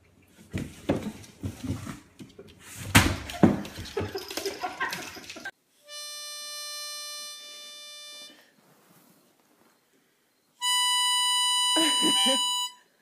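Knocks and rustling at first. Then two long held musical notes with a reedy, harmonica-like tone, each about two seconds: the first starts about six seconds in, the second is higher and louder and starts near the end.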